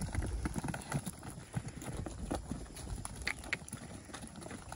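Hooves of a herd of Khillari cattle walking, an irregular run of clicks and knocks.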